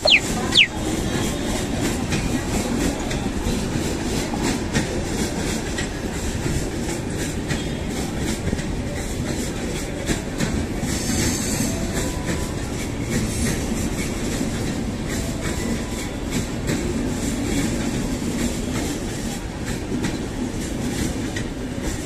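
Steady train rumble with wheel clatter, a train rolling along a neighbouring track past a standing train, with a short high tone right at the start.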